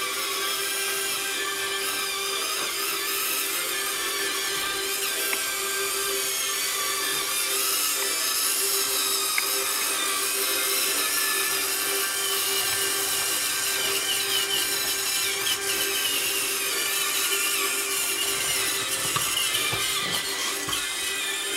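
Small electric drive motors and gearboxes of a radio-controlled die-cast International 1486 tractor model, whining steadily as it drives over loose dirt, the pitch wavering up and down with motor speed.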